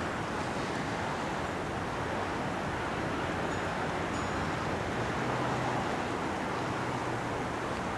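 Steady rushing wind, with a couple of faint high metallic pings about halfway through.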